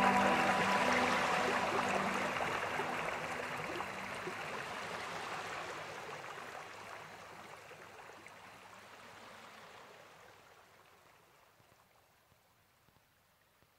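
Water jetting from a hose onto a pile of carrots: a steady rushing hiss that fades out evenly until it is nearly silent near the end.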